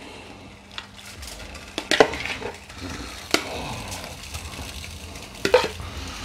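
Cut squid pieces slid from a bowl into a saucepan of boiling court-bouillon, over the steady bubbling of the water, with three sharp knocks of the bowl against the pan.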